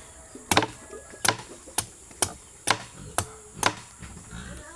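Repeated sharp chopping strikes of a blade into a coconut, about eight blows at roughly two a second.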